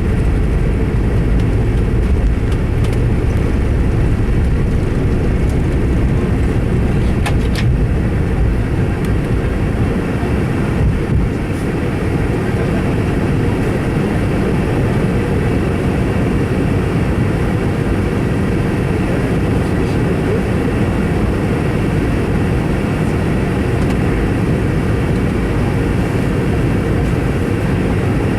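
Steady cabin noise of a Boeing 717 in flight, a loud, dense low rumble from its rear-mounted Rolls-Royce BR715 turbofan engines and the airflow over the fuselage, easing very slightly about eleven seconds in.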